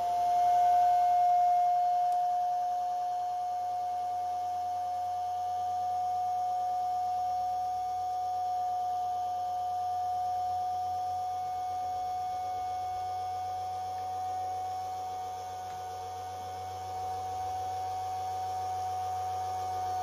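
Small electric motor spinning a disc with a copper strip pressed against it: a steady, high whine over a faint low hum. The copper strip is being heated by friction against the spinning disc.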